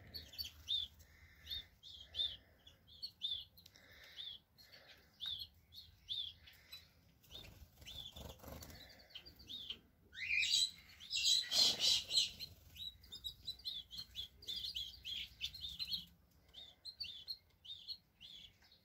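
Small aviary birds chirping: many short, high chirps repeated throughout, with a louder, fuller burst of calling about ten seconds in.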